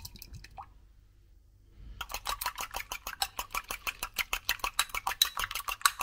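Egg and evaporated milk being beaten by hand in a ceramic mug: a utensil clicks rapidly against the mug, about nine strokes a second, starting about two seconds in.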